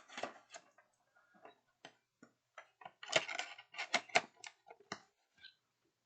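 Plastic miniatures and packaging being handled: scattered light clicks and short clatters, thickest and loudest about three to four seconds in.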